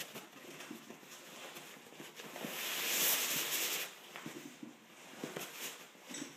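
Sleeping bag fabric rustling as the bag is worked out of its stuff sack by hand, with a longer, louder swish of fabric about two and a half seconds in and small scuffs and knocks around it.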